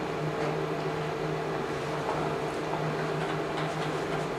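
Steady fan hum filling a small room, with two steady low tones, and a few faint ticks from about two seconds in.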